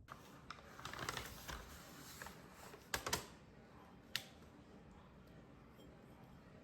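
A few light, sharp clicks and taps over a faint hiss. The loudest are a pair of knocks about three seconds in and a single one just past four seconds.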